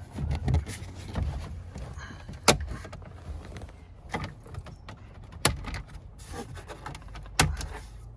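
Plastic interior trim being handled and worked loose, with three sharp plastic clicks a few seconds apart and lighter knocks and rustling between them.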